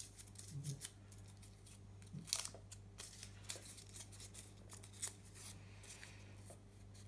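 Folded paper slip being unfolded by hand: faint, scattered crinkling and crackling of the paper, busiest about half a second in and again around two and a half seconds in. A steady low hum runs underneath.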